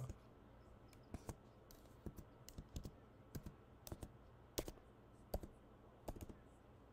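Faint, irregular key taps on a MacBook Pro laptop keyboard as a login password is typed in.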